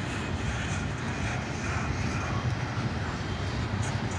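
Steady rumble of a passing double-stack intermodal freight train's well cars, steel wheels rolling on the rail.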